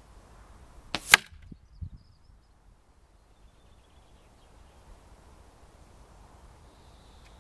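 A single shot from a Weihrauch HW97K .22 spring-piston air rifle: a sharp, loud crack about a second in, followed by a fainter knock just under a second later.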